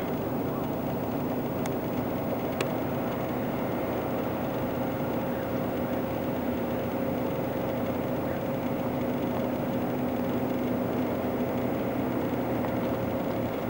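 Steady drone of an engine running at a constant speed. Two light clicks sound about two seconds in.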